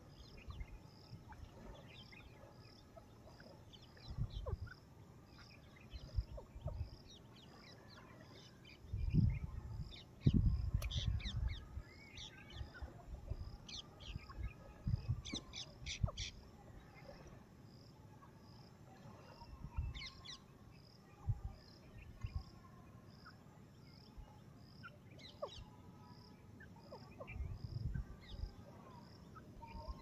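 Scattered short chirps and whistles of birds, with a faint, evenly pulsing high note running underneath and several low thumps.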